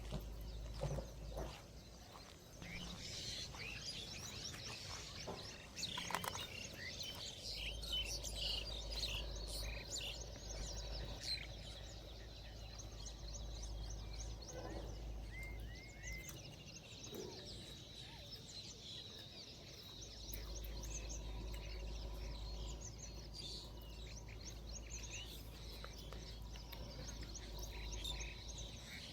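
Many birds chirping, a steady stream of short high calls, with a low rumble coming and going underneath.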